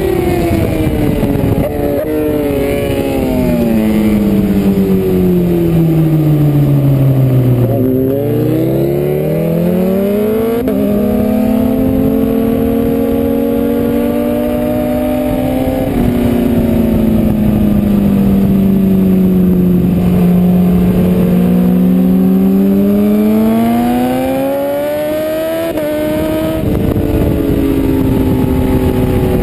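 BMW S1000RR inline-four race engine under load, heard from on the bike. Its note falls steadily for about eight seconds, then climbs with a gearshift step about ten seconds in, holds, sags again and climbs to another shift near the end, over steady wind rush.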